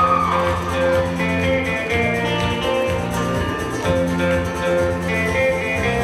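Live school band playing an instrumental passage: strummed and plucked ukuleles and guitars over electric bass, with held chords.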